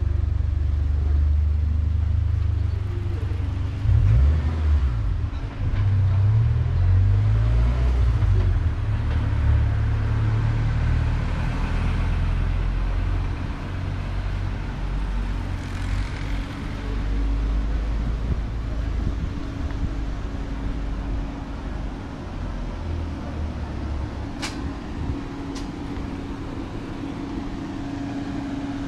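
Street ambience near a railway station: road traffic running past with a heavy, uneven low rumble, easing off after about halfway. Two sharp clicks come about a second apart near the end.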